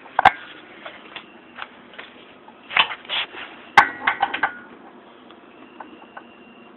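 Metal tools and parts clanking and clinking as they are handled: a sharp clank near the start, another just before the middle followed by a quick run of clinks with a brief ring, and softer scrapes in between.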